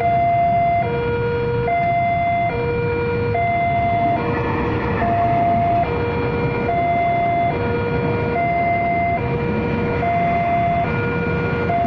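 Level-crossing warning alarm sounding a two-tone chime that alternates between a higher and a lower pitch, each held a little under a second, over the low rumble of a passing train.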